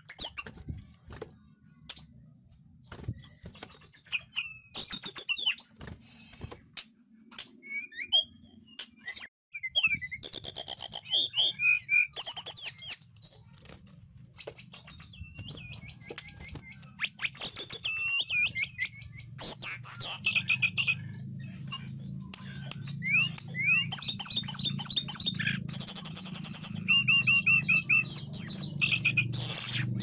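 Caged hill blue flycatcher (tledekan gunung) singing: bouts of varied high whistles and quick trills with short pauses between them, the song coming thicker from about a third of the way in.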